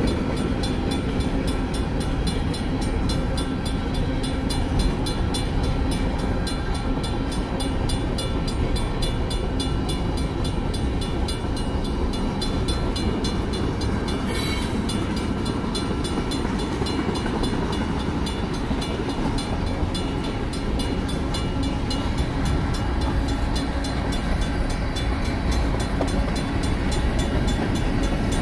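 Freight cars of a long Union Pacific manifest rolling past over the crossing, a steady rumble of wheels on the rails. Over it the crossing's Safetran mechanical bell rings in rapid, even strokes, with one brief sharp noise from the train about halfway through.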